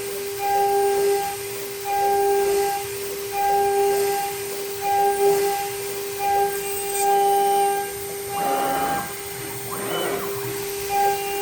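NEMA34 closed-loop stepper motors whining at one steady pitch as the CNC axes make short repeated moves, starting and stopping about once a second. Two short, rougher bursts of noise come near the end.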